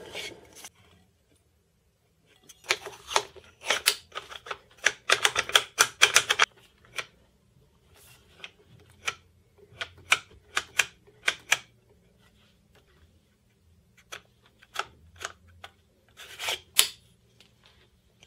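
A wooden plate handled and test-fitted against the top of a Vinten Pro 10 tripod head: bursts of sharp taps, knocks and clicks as wood meets the head's plate.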